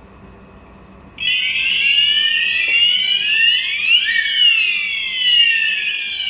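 Several addressable fire alarm sounders start together about a second in, during a system test. Their loud sweeping tones rise and fall, overlapping out of step with one another.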